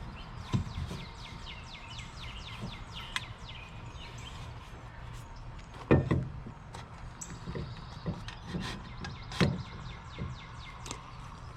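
Birds chirping in a run of quick falling notes, with a few sharp knocks, the loudest about six seconds in and another about three seconds later.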